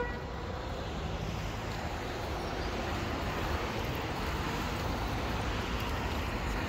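Steady city street ambience: a constant wash of traffic noise with a low rumble underneath.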